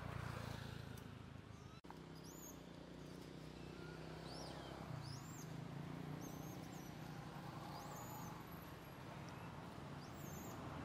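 Faint outdoor ambience: small birds chirping with short, thin, high calls repeated every second or so, over a low steady hum.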